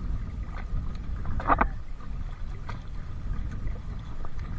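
Wind buffeting the microphone over sea water lapping among shoreline boulders, with a few small clicks and a brief louder sound about a second and a half in.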